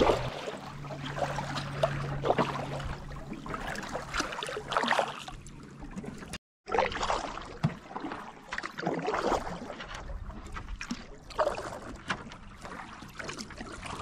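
Canoe paddling on a lake: the paddle blade dipping and pulling through the water with small irregular splashes and trickles, and water lapping against the canoe's hull as it glides. The sound drops out briefly about halfway through.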